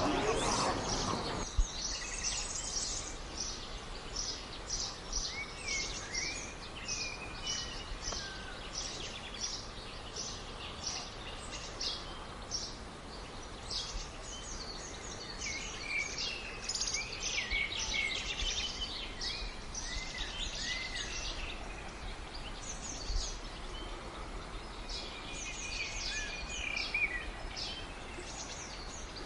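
Small birds chirping and singing: many short, high notes in quick runs, with a few gliding whistles, over a steady outdoor background hiss.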